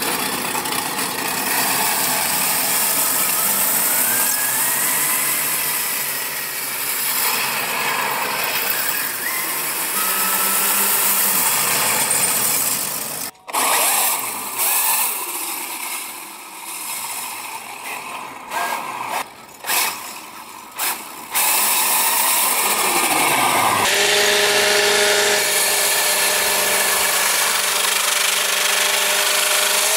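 Traxxas X-Maxx 8S RC truck with circular saw blades for wheels, its brushless motor driving the steel blades across lake ice: a loud, continuous grinding scrape like a power tool, broken by several abrupt cuts. For the last several seconds it turns into a steady grind with a high whine as the truck is held in place and the spinning blades cut into the ice.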